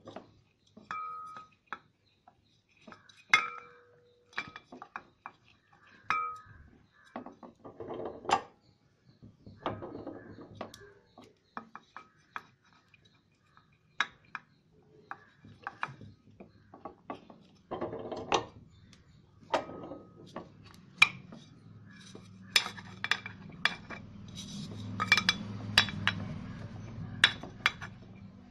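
Small metal ceiling-fan parts (bearing, shaft, cover plate) clinking and knocking as they are handled, in a string of separate clicks and knocks, a few of them ringing briefly. A low hum builds in the last few seconds.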